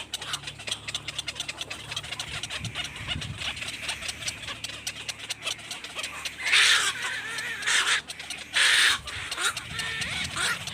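Birds calling: a steady run of rapid clicking calls, broken by three loud, harsh squawks in the second half.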